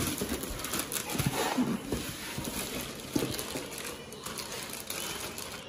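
Packaging of a split air conditioner being handled and opened: rustling, knocks and clicks of cardboard and plastic, with a few brief squeaky sounds.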